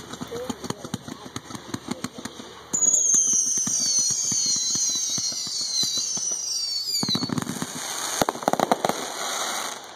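Multi-shot aerial fireworks going off. There is dense crackling at first. About three seconds in, several high whistles start at once and fall slowly in pitch for about four seconds. Near the end comes a rapid string of sharp bangs and crackles.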